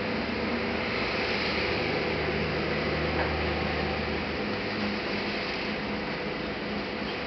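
Steady background hiss with a low hum, and a faint click about three seconds in.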